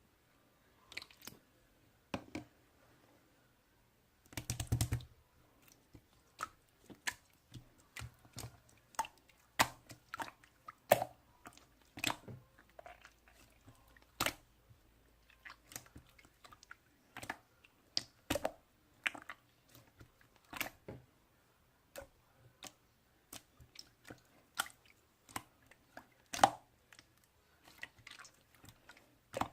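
Slime being handled and pressed, giving irregular sharp pops and clicks, about one to three a second, with a longer cluster of crackling about four to five seconds in.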